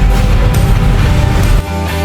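Background rock music with guitar and a heavy low end; the bass drops away about a second and a half in.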